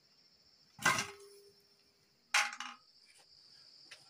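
A vegetable dropped into a stainless steel bowl, a clink with a short metallic ring about a second in. A second, duller knock comes near the middle, over a steady high chirping of crickets.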